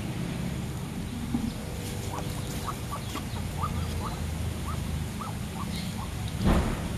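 Ducks and chickens feeding on gravel: short, soft squeaky calls, about two or three a second, from about two seconds in. One louder, noisy burst comes near the end.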